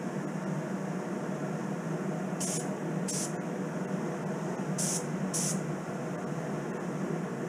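Gravity-feed spray gun hissing in four short trigger pulls, two pairs each about half a second apart, laying Cerakote coating on small hanging parts. Under it runs the steady rush of the spray booth's ventilation fan.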